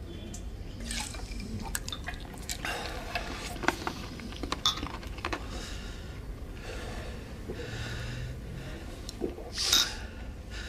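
Quiet sounds of drinking spirits from a small glass: faint glass clicks, sipping and liquid sounds, with breaths and one sharp exhale near the end.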